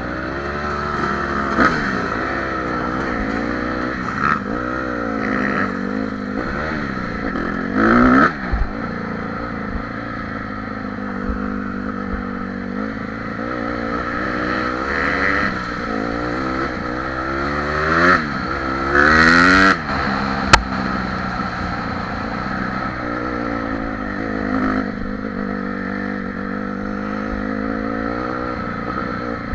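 Honda CRF150R dirt bike's single-cylinder four-stroke engine under way, its pitch rising and falling as the rider opens and closes the throttle and shifts. There are louder revs about eight seconds in and again around eighteen to twenty seconds, and a sharp click just after twenty seconds.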